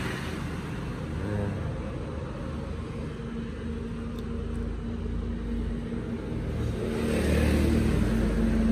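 A motor running steadily in the background, a low hum with a held tone, getting louder about seven seconds in.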